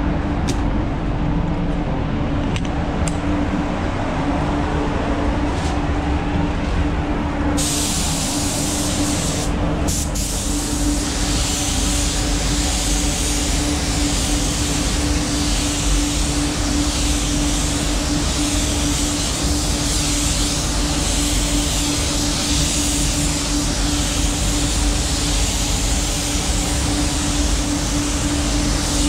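Spray booth ventilation running with a steady hum, and from about seven seconds in a gravity-feed spray gun hissing as it sprays paint onto a car hood, broken twice just before and after ten seconds.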